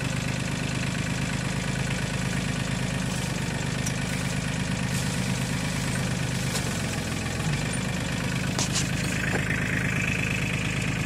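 Mahindra 2516 compact tractor's diesel engine running steadily, heard from the operator's seat. Its tone shifts about seven seconds in, and a higher whine joins near the end.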